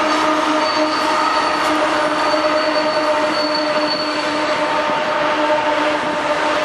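Fully loaded CSX coal train passing close, its cars rolling over the rails with steady squealing tones from the wheels.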